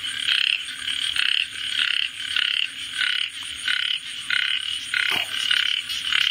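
Frog croaking: a short rasping call repeated steadily, about twice a second.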